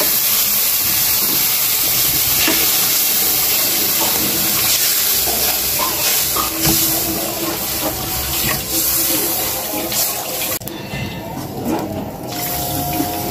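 Milk being poured into a hot kadai of ghee-roasted vermicelli, hissing and splashing as it meets the hot pan while a wooden spoon stirs. The steady hiss drops away about ten and a half seconds in, leaving quieter stirring and splashing in the milk.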